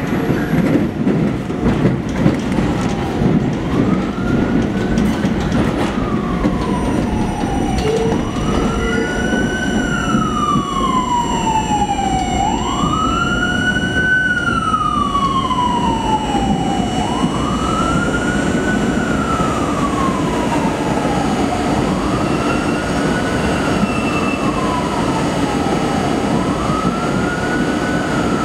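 R32 subway train running along the line with a steady rumble. About three seconds in, a siren starts wailing over it: a quick rise, then a slow fall, repeating roughly every four and a half seconds.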